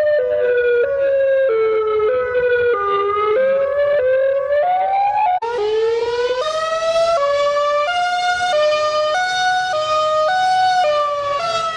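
Tornado warning siren sounding an alternate wail: a high and a low tone alternating, each held under a second, while the pair slowly sweeps down and then back up. There is a brief break about halfway, after which the tones start low and climb again.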